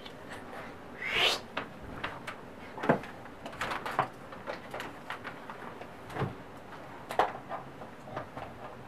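Handling noise: scattered light knocks and clicks, with a brief rustle about a second in, as things are moved about off the desk.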